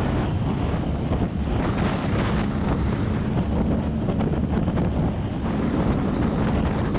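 Off-road vehicle driving, its engine and tyre rumble under heavy wind buffeting on the microphone, with many small knocks and rattles throughout.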